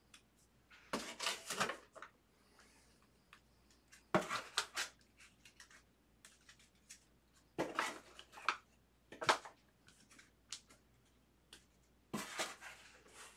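Trading cards and their packaging being handled on a tabletop, in about five short rustling, clattering bursts with quiet gaps between them.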